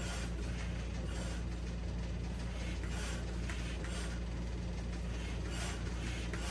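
Hand pump inflating an inflatable paddle board in single-action mode: repeated strokes, each a burst of rushing air, about one every second and a half. A steady low hum runs underneath.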